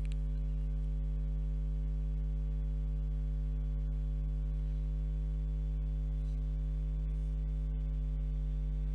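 Steady low electrical mains hum, a buzz with several evenly spaced higher tones stacked above it.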